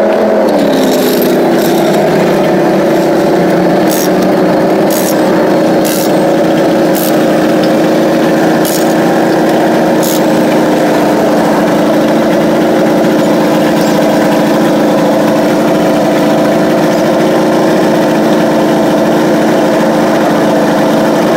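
An engine running steadily at idle, its pitch settling down just after the start. Several sharp metallic clicks and clanks come from the wheel work between about 4 and 10 seconds in.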